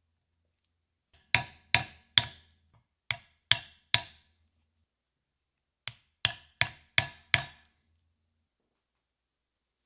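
Poly mallet striking a leather stitching chisel to punch stitch holes: eleven sharp knocks, each with a short ring, in three bursts. The first two bursts have three strikes each, about a second in and again past three seconds. A last run of five comes near the end.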